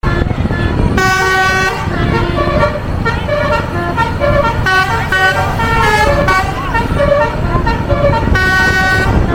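Indonesian bus 'telolet' multi-tone air horn playing a tune of quickly changing notes, with longer held notes about a second in and near the end, over the low rumble of engines and traffic.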